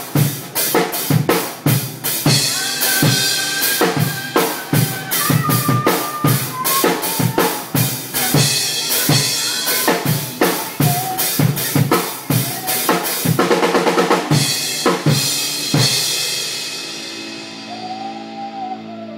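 A live hard-rock band is playing in the room, with the acoustic drum kit loudest: kick, snare and cymbals pound in steady time over electric guitar and bass. The drummer plays a fast fill about fourteen seconds in. The drums stop about two seconds later, and a cymbal and a held guitar and bass chord ring on.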